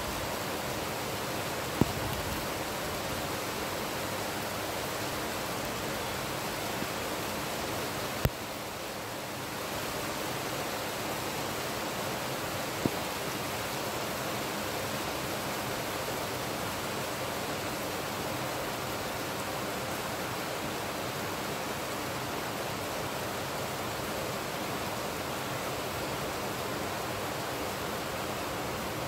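Heavy rain falling, a steady even hiss, with three sharp clicks or knocks spread through it.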